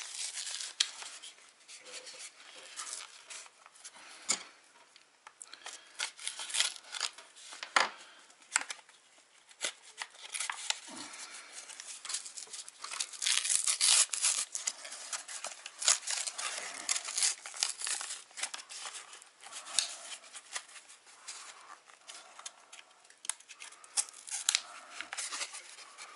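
Hands working at a small cardboard packet of hobby-knife blades, trying to get it open: irregular rustling and crinkling of the packaging with many sharp crackles.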